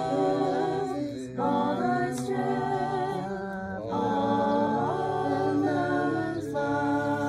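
A few voices singing a song together a cappella, in long held notes with short breaks between phrases.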